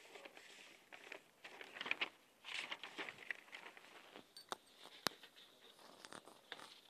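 Faint rustling and scraping from a phone being handled with its lens covered. Several sharp clicks follow, the loudest about five seconds in.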